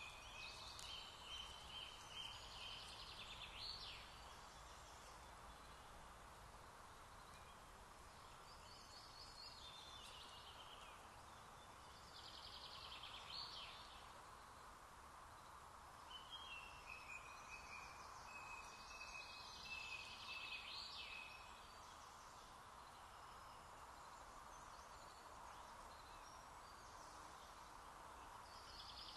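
Faint birdsong in short phrases every few seconds, with one longer phrase in the middle, over a steady hiss.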